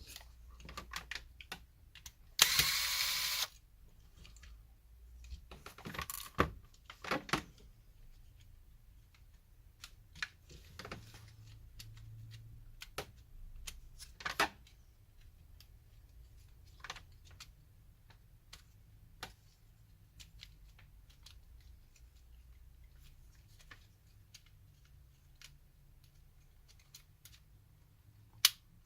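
Small plastic clicks and taps, scattered and irregular, from a PS4 controller's parts being handled as its circuit board is worked out of the shell. A loud harsh rasp lasting about a second comes near the start.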